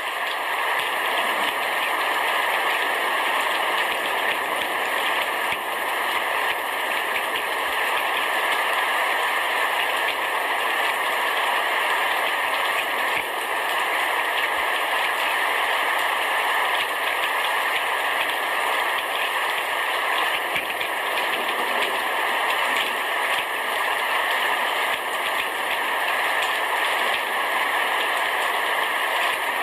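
Heavy rain falling steadily on a roof, an even hiss of drops with no breaks.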